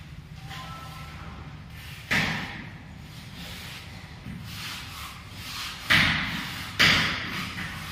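Hand float scraping and rubbing over wet cement at the edge of a floor chamber opening, with three sharp knocks about two, six and seven seconds in.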